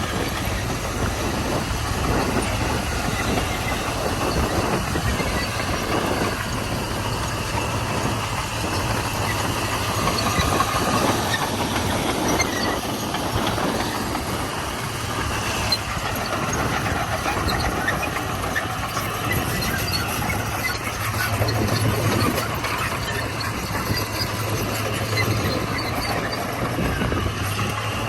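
Komatsu D41P crawler bulldozer working gravel: its diesel engine runs steadily with a constant low hum, and scattered clanks and rattles run through it.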